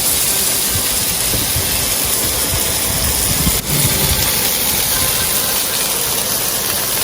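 Flour-coated rawas fish fillets frying in hot olive oil in a pan, a steady loud sizzle, cooking the second side after being flipped.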